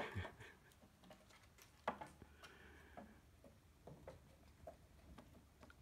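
Near silence with a few faint, scattered clicks and ticks.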